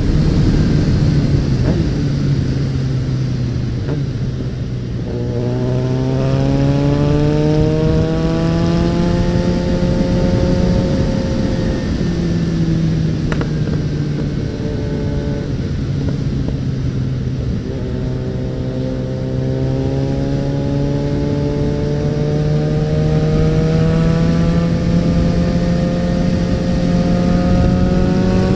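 Suzuki Bandit 650N's inline-four engine under way, its note climbing slowly from about five seconds in, easing back around twelve seconds, then climbing again from about eighteen seconds.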